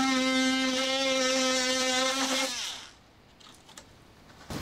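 Ridgid cordless oscillating multi-tool running at a steady high pitch as it cuts a channel into the edge of a fiberglass-skinned Nidacore honeycomb panel. About two and a half seconds in it is switched off and winds down, its pitch falling away.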